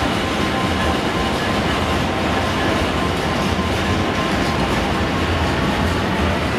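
A freight train of covered steel-coil wagons rolling steadily past close by, with the continuous noise of its wheels running on the rails.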